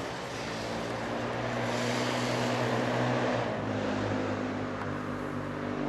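Motor vehicle on a wet road: a steady engine drone with tyres hissing through the water, the hiss loudest from about two to three and a half seconds in.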